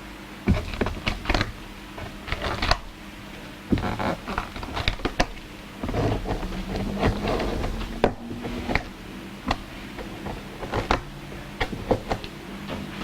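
Old silicone sealant being scraped off a hot tub shell: irregular scraping strokes and sharp clicks, with a faint steady hum underneath.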